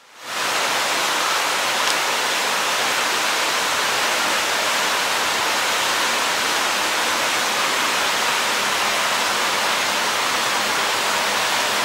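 Steady rushing of running water in indoor koi ponds, unchanging throughout, with a faint low hum beneath it.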